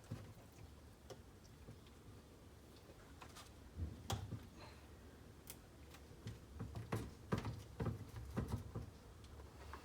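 Scattered light clicks and taps of hand tools and small metal parts being handled while unbolting parts of an RC car's two-stroke engine, with a run of sharper knocks in the second half.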